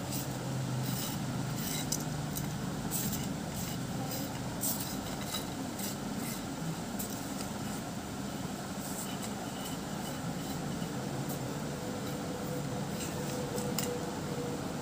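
A steady low hum with hiss, and light scattered clicks and taps as a thin fishing rod tip is handled.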